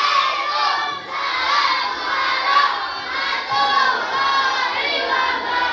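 A class of schoolchildren's voices, many of them chanting or calling out loudly together in unison.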